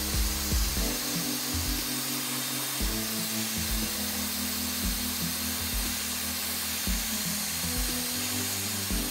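Background music with a low beat about once a second, over the steady rushing hiss of a hair dryer blowing hot air on the phone's edge to soften the screen adhesive.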